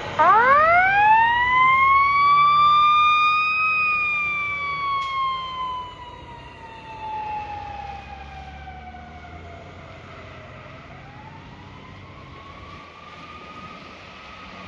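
Fire engine siren winding up quickly to a high wail, then falling slowly in pitch over several seconds and growing fainter, before starting to rise again near the end.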